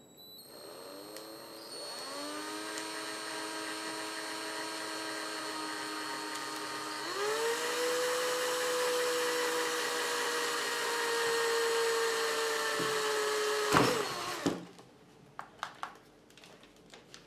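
Cordless drill boring a pilot hole through a Kydex cheek rest into a rifle stock. The motor whine rises as it spins up about two seconds in and steps up to a higher speed about seven seconds in. It stops with a sharp knock near the end, followed by a few light clicks.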